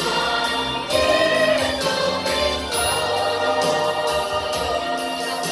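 A choir singing a Filipino Christmas song with instrumental accompaniment, held notes over a steady beat of short, high percussion strokes about twice a second.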